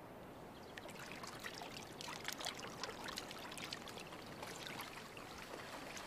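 Faint trickling of shallow water with scattered small crackles and rustles, a lioness moving through wet, flooded grass.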